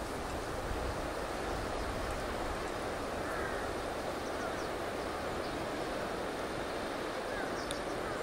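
Steady rush of river water and wind, with a few faint bird chirps about three seconds in and again near the end.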